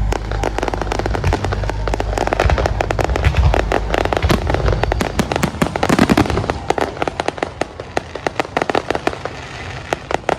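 Aerial fireworks going off in a dense barrage: rapid crackling pops over a low booming rumble. The rumble dies away about halfway through while the crackling goes on.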